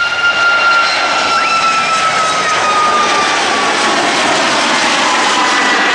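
Boeing 737 airliner's twin turbofan engines at takeoff thrust during the climb-out just after liftoff: loud, steady jet noise with a high fan whine that slowly falls in pitch as the plane passes.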